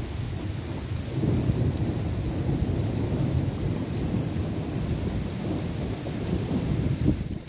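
Thunder rolling in a long low rumble that swells about a second in and holds for several seconds before dropping away sharply near the end, with steady rain falling.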